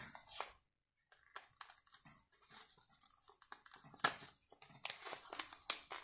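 Plastic blister packaging of a lighter two-pack crinkling and crackling as it is opened, with scattered sharp clicks; the loudest crack comes about four seconds in.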